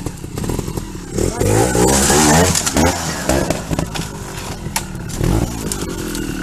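Trials motorcycle engine revving in surges as the bike climbs a rocky slope, its pitch rising and falling and loudest about two seconds in, then dropping back to a lower, steadier running.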